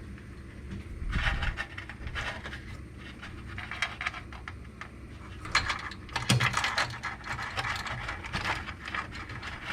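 Hands handling washing-machine parts and wiring: clusters of small clicks, rattles and scrapes of metal and plastic, around a second in and again from about five and a half seconds, while a ground wire is being fastened.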